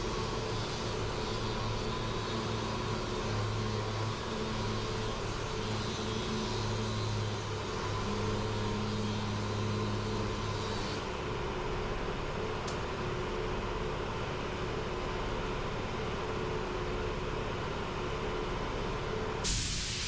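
An electric power tool running steadily with a constant motor hum, its pitch shifting slightly as it is worked against the plastic bumper. Near the end it gives way to a louder, steady hiss.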